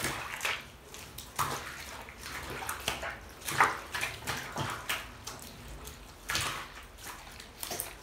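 Bathwater in a tub splashing and sloshing in short, irregular splashes as a puppy is scrubbed by hand, the loudest splash a little after the middle.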